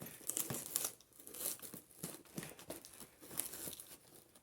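A shipping package being torn and pulled open by hand: irregular tearing and crinkling of the packaging, with small clicks and rustles.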